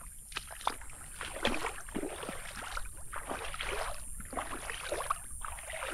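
Small waves lapping and splashing unevenly against the shore and the beached boats.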